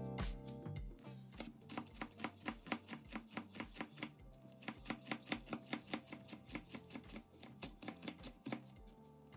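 Chef's knife slicing a leek into rings on a wooden cutting board: a steady run of sharp cuts, about three a second, each knocking on the board. In the first second, a carrot rubbing on a metal box grater.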